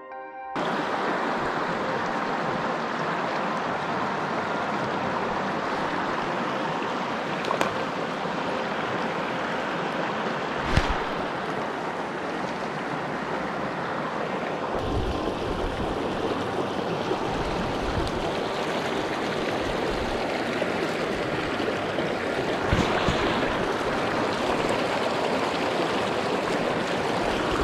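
Shallow mountain creek rushing and babbling over rocks in a steady wash of water noise, with a few brief knocks along the way, the sharpest about eleven seconds in.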